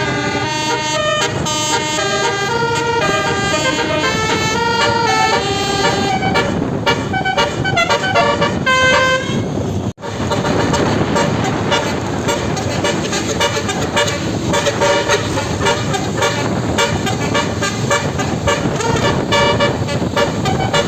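Basuri 12-note telolet air horn on a tour bus playing a stepped, multi-tone melody, note after note. About ten seconds in the sound cuts out for an instant; after that the horn tones carry on less clearly over a dense noisy background.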